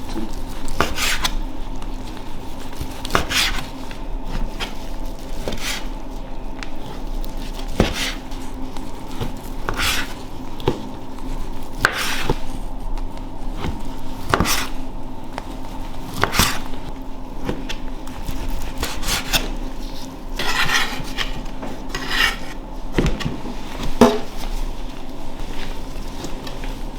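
Irregular knocks and short scrapes of hard objects being handled, wood and metal on metal, every second or two, over a steady low hum.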